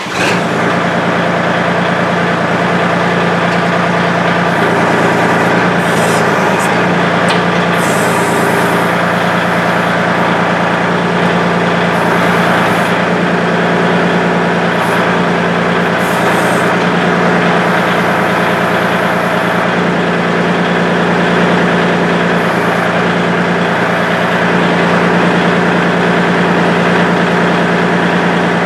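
Kubota L2501 compact tractor's three-cylinder diesel engine running steadily.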